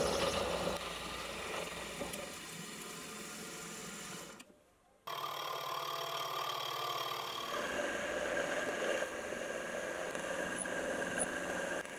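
Milling machine spindle running while cutting into a metal vise spindle, first with an end mill. About four and a half seconds in there is a brief drop to near silence, and the cutting resumes with a boring head, boring the hole out round and straight.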